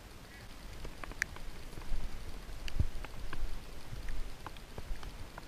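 Scattered raindrops ticking irregularly, a few with a short ring, over a faint hiss of rain. Now and then there are low dull thumps of the camera being carried through wet grass.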